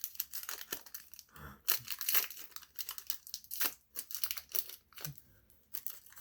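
Foil Pokémon booster pack wrapper being torn open and crinkled by hand: a dense run of crackles and rustles, with a brief lull near the end.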